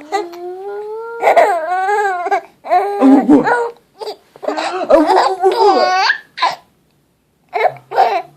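Baby laughing in repeated high-pitched bursts with short gaps between, opened by a voice gliding upward in pitch; the baby has the hiccups.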